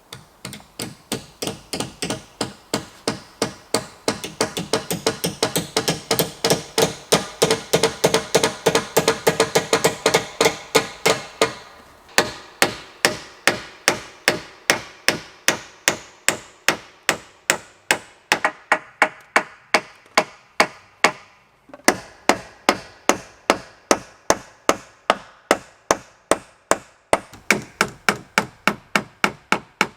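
Hammer striking on wood in fast, even blows, about three a second. The strikes ring more in the first part, and the run breaks off abruptly about 12 and 22 seconds in before carrying on.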